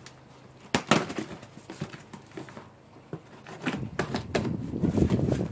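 Cardboard shipping box being cut and pulled open with a pocket knife: a couple of sharp snaps about a second in, then a stretch of crackling and rustling from the cardboard, with a few louder clicks.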